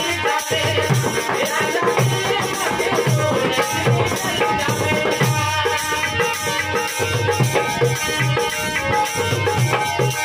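Live Marwari folk music: harmonium playing held chords, a dholak barrel drum beating a steady rhythm, and a tambourine jingling, with a man singing over them.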